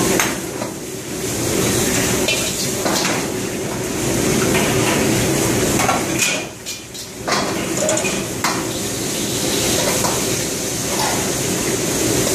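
Restaurant wok station at full work: gas wok burners running with a steady rush, metal ladles clanking and scraping against several woks, and food sizzling. The clatter eases briefly just past halfway.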